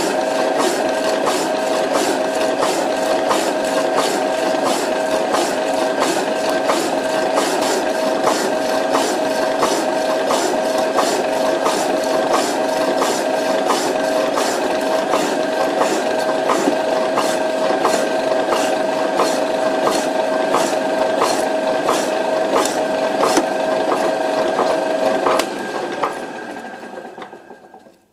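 Power hacksaw with a worn blade cutting through steel bar under coolant: a steady motor hum with a regular click on every stroke. A little over two seconds before the end it finishes the cut and stops, and the sound dies away.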